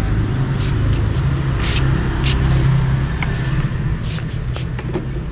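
A steady low motor rumble, with scattered light clicks and taps.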